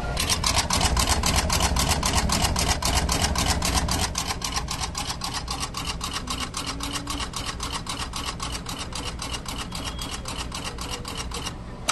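Southern Machinery S4060 60-station axial insertion machine running, a rapid, even clatter of about four to five strokes a second as its head inserts axial components into a circuit board. It is loudest for the first few seconds and stops shortly before the end.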